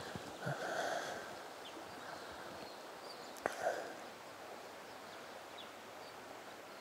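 Quiet riverside ambience: faint flowing water, with a brief soft sound about half a second in and a single sharp click about three and a half seconds in.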